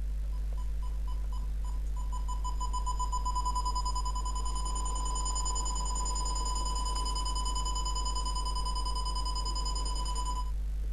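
RAKSA iDet selective RF detector beeping: short high beeps come faster and faster and merge into one continuous tone about two seconds in, which cuts off sharply near the end. This is the detector's audio alert, signalling a strong signal at 433 MHz, the test bug's frequency.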